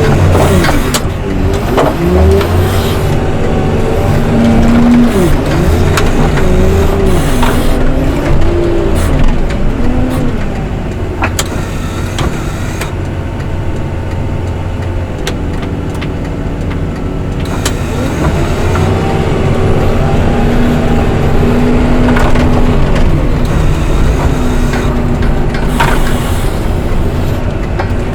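Heavy snow-removal machine's diesel engine running under load, revving up and falling back again and again, with occasional sharp knocks.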